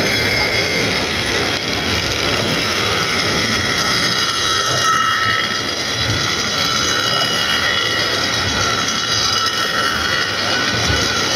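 A car of the water-balanced Lynton & Lynmouth Cliff Railway running along its steep track: a steady rolling noise of its wheels on the rails, with a high whine over it.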